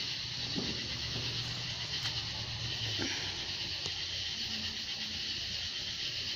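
Steady high-pitched insect chorus, an even buzzing hiss that holds without a break, over a faint low hum.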